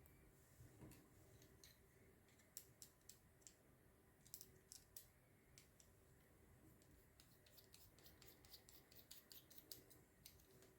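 Faint, irregular light clicks and small scrapes, coming in clusters, of hair trimmer parts and tools being handled while the trimmer is taken apart.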